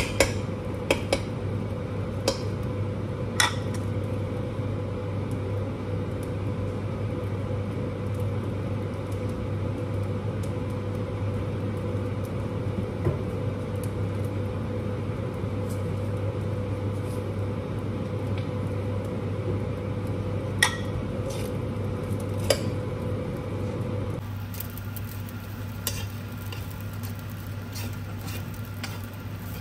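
Fried rice frying in a wok over a steady low hum, with a slotted spatula knocking against the pan several times near the start and twice more about two-thirds of the way through. Near the end the steady sound drops a little and lighter stirring and scraping go on.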